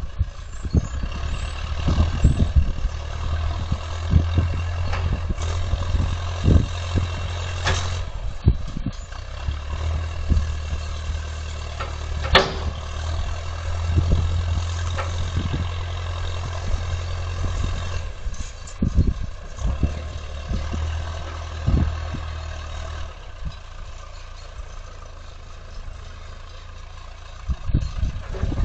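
Heavy equipment engine running with a low drone that strengthens and eases as it works, with scattered knocks and clanks throughout and one sharp crack about twelve seconds in.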